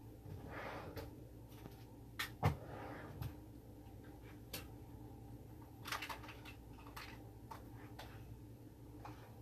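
Scattered faint clicks and knocks of objects being handled and set down, with one louder thump about two and a half seconds in and a small cluster of clicks around six seconds in.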